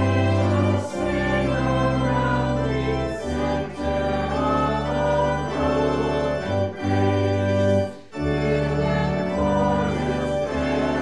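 Church organ playing full, sustained chords in phrases, with short breaks between phrases, as the closing music of the service.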